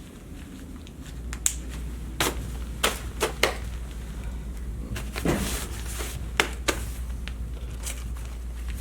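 Rain pants being pulled on and handled: a scattered series of sharp clicks and knocks, with a longer rustle about five seconds in, over a steady low hum that begins about a second in.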